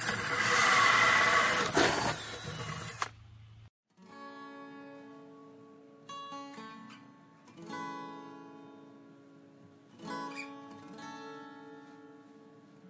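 A DeWalt cordless drill cutting a hole into a battery box, loud and grinding, stopping suddenly about three seconds in. Then acoustic guitar music with single plucked notes.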